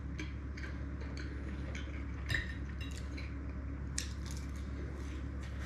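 Cutlery clicking lightly against a plate during eating: a few scattered faint clicks, two a little louder about halfway through. A steady low hum runs underneath.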